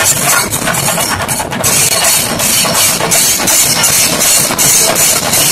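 Kerala chenda drums and ilathalam hand cymbals played together, loud and fast, the cymbals clashing in an even rhythm about four times a second over the dense drumming.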